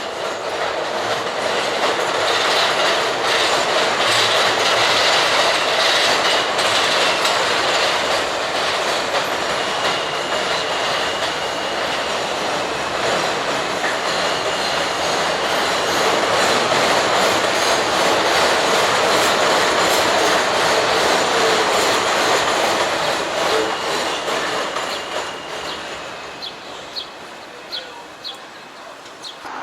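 New York City subway train running on its rails: a loud, steady rush of wheel and rail noise with thin squealing tones held above it, fading away over the last few seconds.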